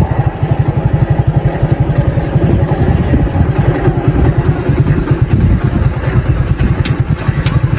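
Motorcycle engine running steadily, with a fast, even low thudding.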